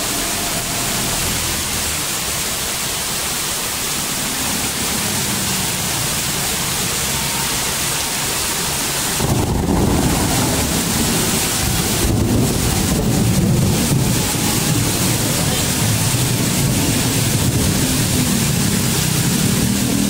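Heavy rain falling steadily. About nine seconds in, a deeper low rumble joins it and the sound grows louder.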